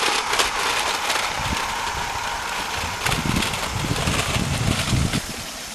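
Toy R/C car's small electric drive motor and gears running as it drives on asphalt, on a battery that is running flat. A louder low rumble comes in about three seconds in and stops near the end.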